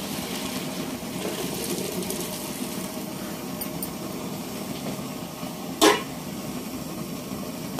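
Hot water and boiled macaroni poured from a metal pot into a perforated metal colander, the water splashing and draining through. About six seconds in, one sharp knock as the emptied pot is set down on the floor.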